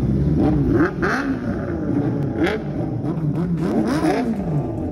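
Vehicle engines revving repeatedly, their pitch sweeping up and falling back in quick blips, with more than one engine heard at once.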